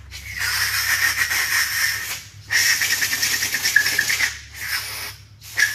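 Rough scraping as the custom shift knob is cut or filed in long passes, about two seconds each with short breaks between, over a steady electrical hum.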